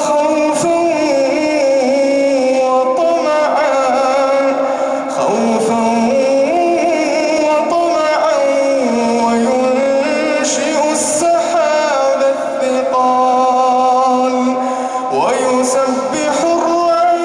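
A man's melodic Quran recitation in the tajweed style. He draws out long, ornamented notes that glide up and down, with only brief breaks between phrases.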